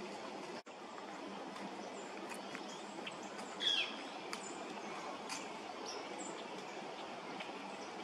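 A pileated woodpecker calling in the distance: one short downslurred call about halfway through, the loudest sound, with a few faint high chirps over a steady background hiss. There is a brief dropout to silence just before a second in.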